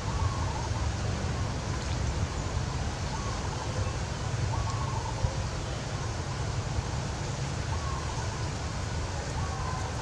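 Steady outdoor noise: a low rumble and hiss like wind on the microphone, with faint short wavering calls every second or two.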